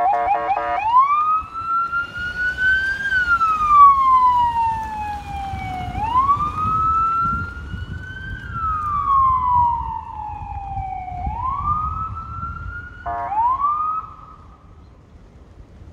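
Federal Signal SS2000 SmartSiren, an electronic police siren, sounding a buzzy horn tone that switches about a second in to its wail. The wail rises and falls slowly, about five seconds a cycle. It is cut by a brief buzzy blast near the end and stops shortly after.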